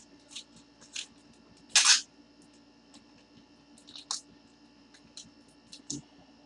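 Scattered small clicks and ticks, with one short, louder rustling crackle about two seconds in, over a faint steady low hum.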